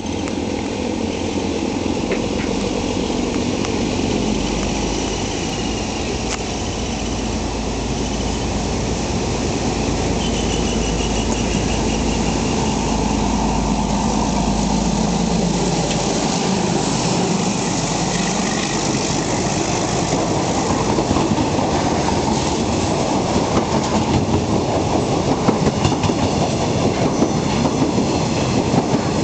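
YDM4 diesel locomotive's engine running as it hauls a passenger train toward the platform, a low rumble that fades after the locomotive goes by. Then passenger coaches pass close by, with the rhythmic clickety-clack of wheels over rail joints growing stronger near the end.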